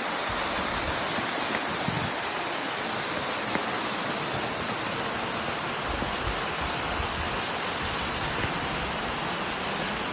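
Large waterfall rushing in a steady, even roar of falling water.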